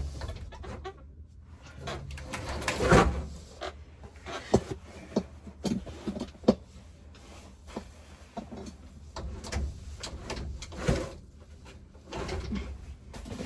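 Handling noise: scattered clicks, taps and knocks of small items being picked up and set down, the loudest about three seconds in and another near eleven seconds.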